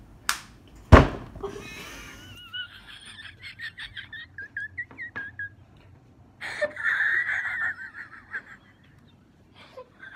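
A sharp knock on or near the phone's microphone, then high-pitched squealing giggles in quick pulses, rising to a louder squeal a few seconds later.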